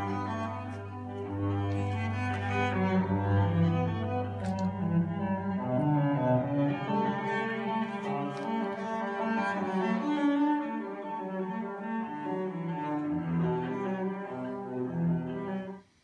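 Music of low bowed strings with sustained notes, played through floor-standing loudspeakers driven by a small TPA3118 class D amplifier board. A low note is held for the first five seconds or so before the lines begin to move, and the music cuts off just before the end.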